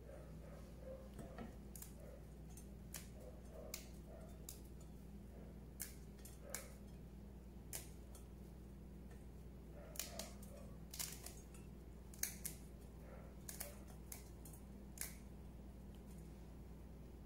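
Faint, irregular small clicks and snaps as huauzontle buds are stripped from their stalks by hand and dropped into a stainless steel bowl, over a low steady hum; a few louder clicks come around the middle.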